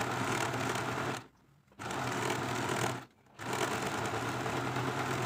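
Small electric sewing machine running steadily as it stitches a side seam, stopping twice for about half a second, a little over a second in and again about three seconds in, before starting up again.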